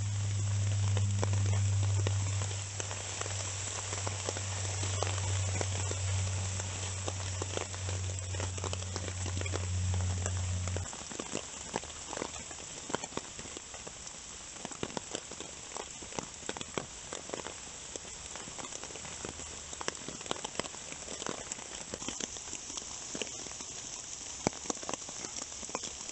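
Rain pattering on an OEX Bush Pro tarp overhead, with many small drops ticking on the sheet. A steady low hum runs under it for the first ten seconds or so and stops suddenly.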